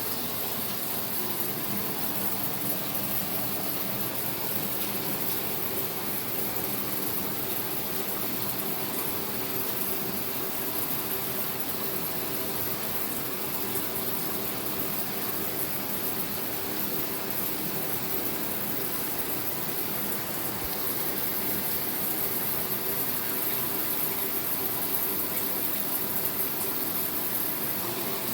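Shower running: a steady spray of water falling with an even hiss that does not change.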